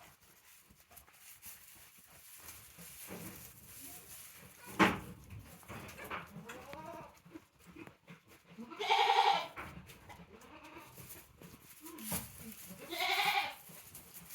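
Goat bleating twice, each call about a second long, a few seconds apart. A sharp knock sounds a few seconds before the first bleat.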